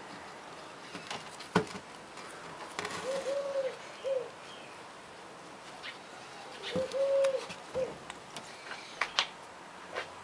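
A dove cooing, a long arched coo followed by a short one, heard twice. It is mixed with scattered clicks and rustles of hands pressing a strawberry plant and soil into a PVC pipe; the sharpest click comes about a second and a half in.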